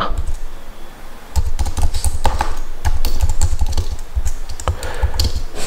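Typing on a computer keyboard: quick, irregular keystrokes, sparse for the first second or so, then a dense run from about a second and a half in.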